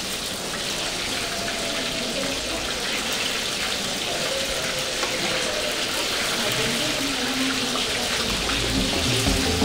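Fish pieces frying in hot oil in a pan: a steady sizzle with fine crackling. Background music comes in near the end.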